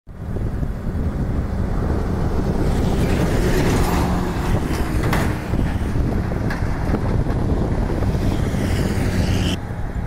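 Wind rumbling on the microphone, mixed with the noise of road traffic as a truck passes. The higher hiss drops away abruptly near the end while the rumble goes on.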